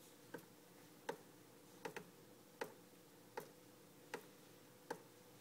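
Water dripping from a terrarium drip watering system, each drop a sharp faint tick, about one every three-quarters of a second, some landing as a quick double tick.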